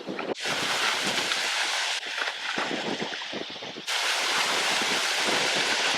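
Steady rushing wind noise, strongest in the upper range, dropping out and returning abruptly a few times.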